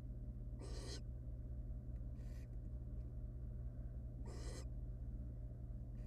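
Barn owl hissing calls: three short, raspy hisses about two seconds apart, the middle one fainter, over a steady electrical hum.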